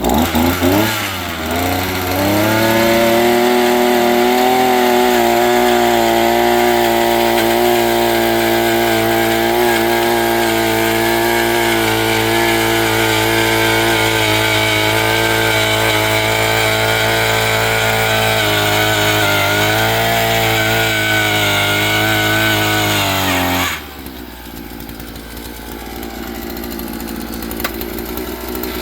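Predator gas ice auger's small two-stroke engine running at high speed after being pull-started, its pitch climbing over the first couple of seconds and then holding steady: it keeps running now that the corroded fuel lines have been replaced. About 24 seconds in the sound drops sharply and a quieter, rougher noise carries on.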